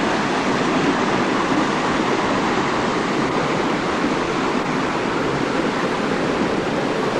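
Steady rush of a waterfall pouring into a pool, a dense even noise that stays constant throughout.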